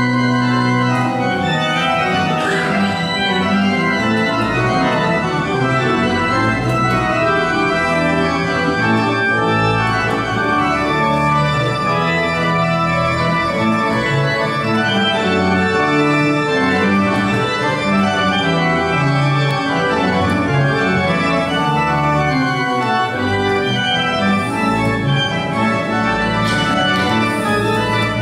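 Church pipe organ playing a piece of held chords over a moving bass line, its notes changing every second or so.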